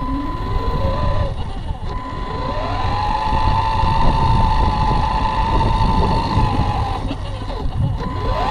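Radio-controlled car's motor whining as it drives on asphalt, its pitch following its speed. It rises briefly and drops about a second in, then climbs over about two seconds, holds high, and falls away near seven seconds before rising again at the end. A steady high tone and a low rumble of the tyres on the pavement run beneath.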